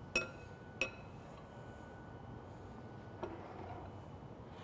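Quiet room tone with two short, ringing clinks about two-thirds of a second apart near the start, and a fainter knock a little after three seconds in.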